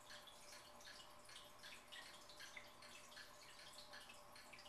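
Faint water dripping and trickling in a fish tank, in many small irregular drops and splashes, over a low steady hum.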